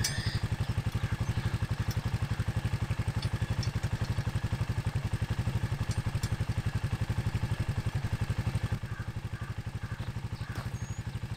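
ATV engine idling with an even, steady pulse, a little quieter about nine seconds in. A few faint metal clinks come from the chisel plow's steel tines as they are handled.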